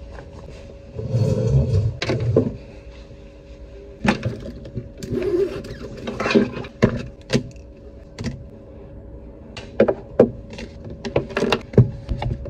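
Close handling noise of a jacket rustling as it is taken off, then a backpack being unpacked and notebooks and a tablet set down on a table, giving a string of knocks and clicks. A steady hum runs underneath.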